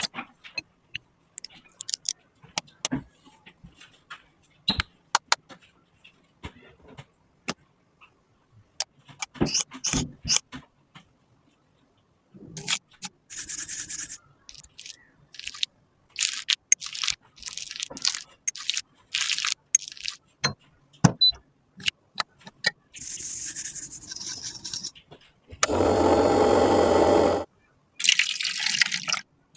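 Scattered clicks and taps, then repeated short scraping strokes, like a tool scraping and pressing makeup powder in a compact during a repair. Near the end a louder, steady noise runs for about two seconds.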